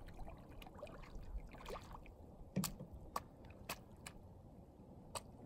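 Faint sloshing of shallow water as a small child wades through it, with a few sharp clicks in the second half.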